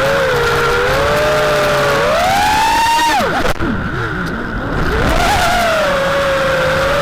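FPV quadcopter's brushless motors and propellers whining in flight. The pitch climbs about two seconds in, drops sharply around three seconds as the throttle is cut, then picks up again near five seconds and holds.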